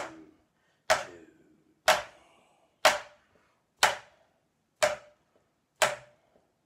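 Drumsticks playing slow flams on a drum practice pad: both sticks come down almost together, about one flam a second, seven in all. The sticks land at different heights, with the leading stick alternating between hands, so each flam has one accented note.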